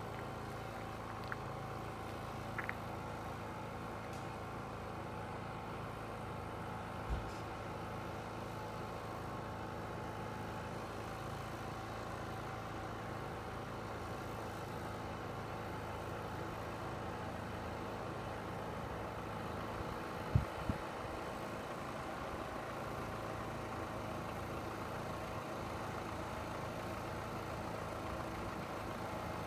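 Engine idling steadily, a constant hum with a few faint knocks; the loudest is a pair about twenty seconds in.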